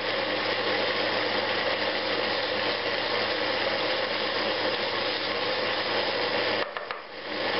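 Flexible-shaft rotary tool running steadily while its cutter mills inside a wooden tobacco pipe, a continuous whirring and grinding. It dips briefly near the end and then picks up again.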